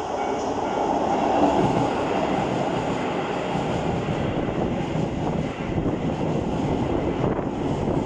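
Keisei 3000-series electric commuter train passing close by, a steady loud rush of wheels on the rails and running gear. A level-crossing alarm's repeating two-tone signal is heard in the first second before the train's noise covers it.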